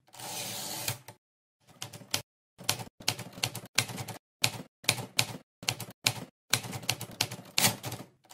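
Typewriter keys clacking in short, irregular runs of strikes separated by brief pauses.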